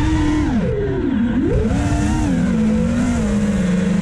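FPV quadcopter's brushless motors whining, the pitch swinging up and down with the throttle, dipping about a second in, then holding lower and steadier before climbing again near the end.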